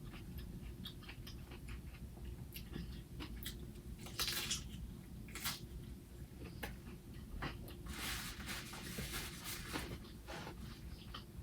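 A person eating close to the microphone: faint chewing and mouth clicks, with a few louder noises about four, five and a half, and eight seconds in.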